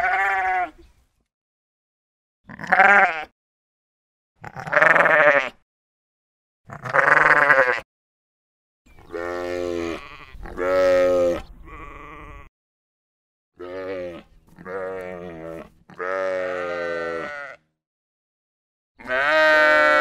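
Sheep bleating: a series of about ten separate bleats, each lasting up to about a second and a half with short silences between, wavering in pitch.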